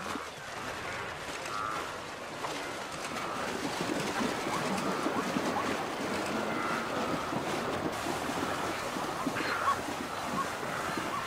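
A herd of wildebeest splashing through a river, a steady rush of churned water that grows a little louder a few seconds in, with wind noise on the microphone.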